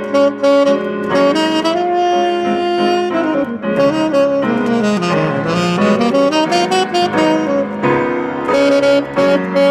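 Baritone saxophone playing a melody with piano accompaniment. It opens with short detached notes, then long held notes that bend down and back up through the middle, and returns to short repeated notes near the end.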